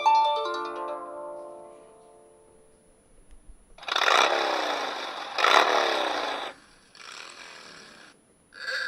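iPhone 4 on iOS 5 playing its built-in ringtones and alert tones through its speaker, one after another. A melodic tone dies away over the first two seconds. About four seconds in a harsh, noisy tone with two falling sweeps plays for about two and a half seconds, then a fainter stretch, and a bright musical tone starts near the end.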